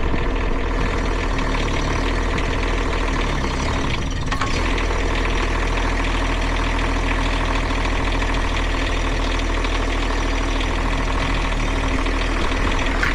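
Mini excavator engine running steadily, with a brief change in its sound about four seconds in, as the rerouted hydraulic controls are tried out.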